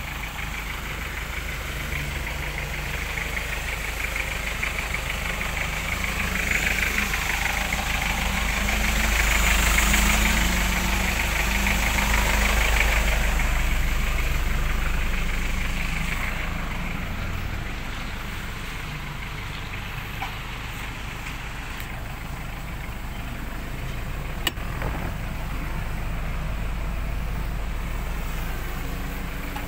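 Diesel engine of a 2006 Mitsubishi Fuso Canter FB511 truck idling steadily, growing louder for a few seconds about a third of the way in, then settling back. A sharp click sounds about three-quarters of the way through.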